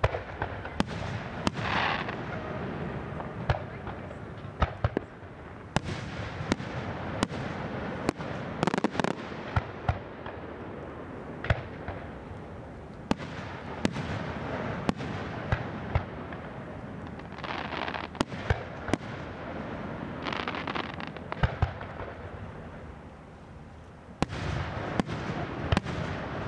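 Fireworks display: aerial shells bursting in a long series of sharp bangs, dozens of them, with a few noisy hissing stretches about a second long between them.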